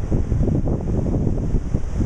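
Ocean surf washing on the shore, with wind buffeting the microphone in an uneven low rumble.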